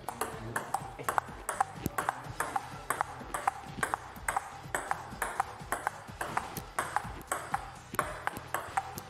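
Table tennis rally: the ball clicking off the rubber paddles and bouncing on the table, a steady run of sharp knocks about three a second.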